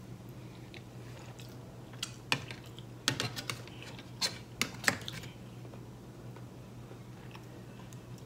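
A person eating: a run of sharp, light clicks and smacks between about two and five seconds in, over a steady low hum.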